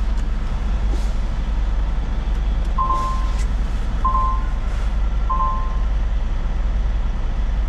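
Semi truck's diesel engine running low and steady, heard from inside the cab, with three beeps of the backup alarm about a second and a quarter apart in the middle as the truck reverses.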